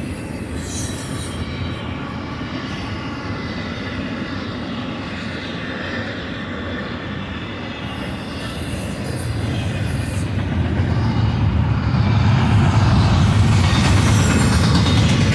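Cars of a double-stack intermodal freight train rolling past, a steady rumble of steel wheels on rail that grows louder about two-thirds of the way through.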